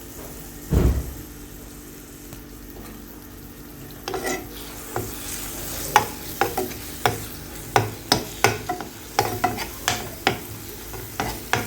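Garlic frying in olive oil in a pan, with a utensil stirring and tapping against the pan in repeated sharp clicks from about four seconds in. There is a low thump a little under a second in.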